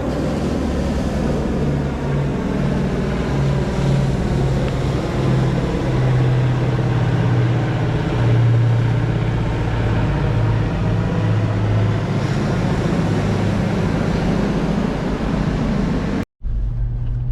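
Droning hum of a low-flying military propeller aircraft passing overhead, taken by the angler for a C-130 turboprop. It is a steady, loud drone whose low pitch wavers as the plane goes over.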